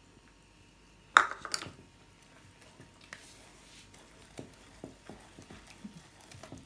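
A sharp clatter about a second in, then faint scattered clicks and taps as a wire whisk stirs flour, eggs and milk into a thick batter in a plastic bowl.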